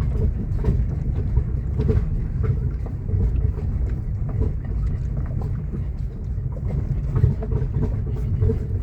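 A car driving over a rocky dirt track: a steady low rumble with frequent knocks and rattles from the bumps.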